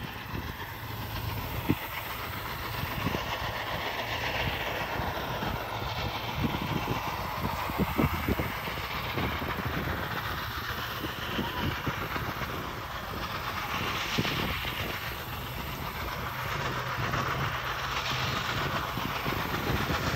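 Union Pacific Big Boy steam locomotive approaching from a distance, heard as a steady low rumble that grows a little louder in the first few seconds.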